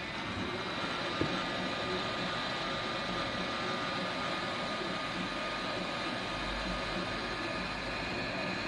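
Hot-air rework station blower running steadily: an even airy hiss with a faint high whine, used to solder the BIOS flash chip back onto a laptop motherboard.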